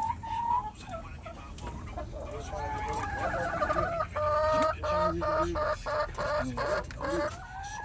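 Chickens clucking: a run of short repeated clucks, about three a second, then a longer drawn-out call near the end.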